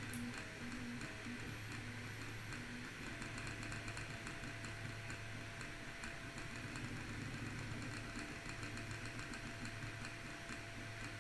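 Voron 2.4 3D printer running a print: a steady motor hum with a thin tone joining about three seconds in, over a fast run of faint ticks. The ticking is typical of the noise the owner traced to a loose screw on the gantry linear rail near the toolhead.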